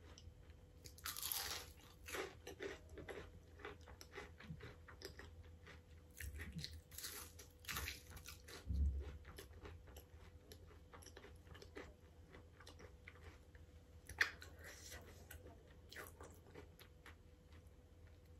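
A person chewing and biting food close to the microphone, with soft crunches and many small wet mouth clicks.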